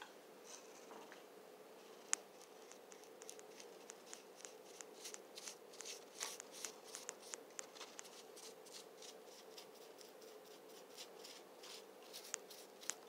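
Faint, irregular clicks and light scratches of hands handling things close to the microphone, coming thick and fast through the middle and thinning out after, over a low room hum.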